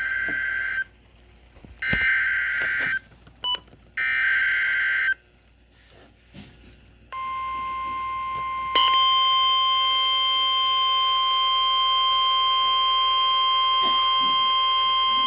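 Emergency Alert System SAME header on NOAA Weather Radio: three buzzy bursts of digital data tones, each about a second long, repeated about two seconds apart. After a short pause the weather radio's warning alarm tone starts, one steady high pitch that steps louder about a second and a half in and holds.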